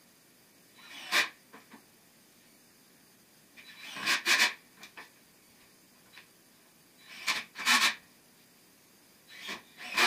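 Cordless drill driving screws into wood, in four short bursts a few seconds apart, some in two quick pulses.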